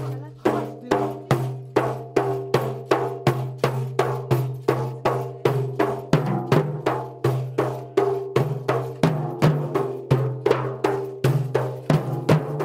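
Several large Badakhshani frame drums (daf) beaten together in a fast, steady rhythm, two or three strong strokes a second with lighter strokes between. The drumming starts at the very beginning with a sharp first stroke.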